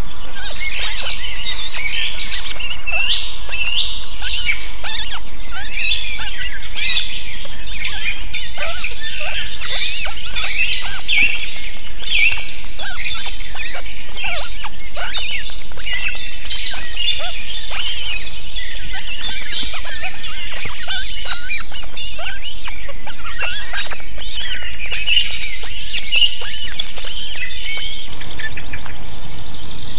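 Dense, continuous chorus of many short, high bird chirps and calls. The low background sound changes near the end.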